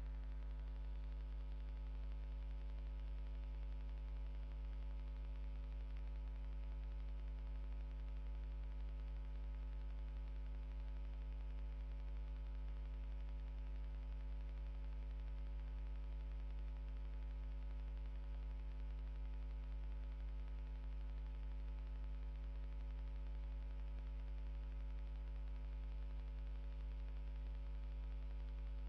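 Steady electrical mains hum: a low, unchanging hum with a stack of buzzy overtones and faint hiss, and no other sound.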